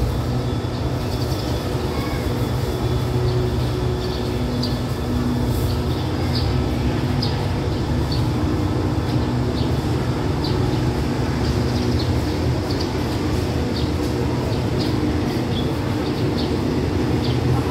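Diesel-hauled passenger train standing at a station platform with its engine idling: a steady low hum with several constant tones, and short high chirps scattered throughout.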